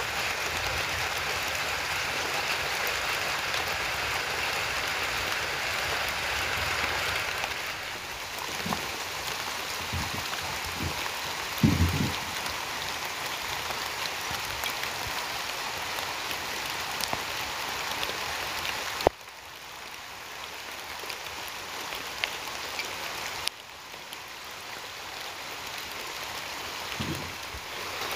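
Light drizzle falling, a steady even patter of rain. A brief dull knock about twelve seconds in, and the rain turns suddenly quieter twice in the second half.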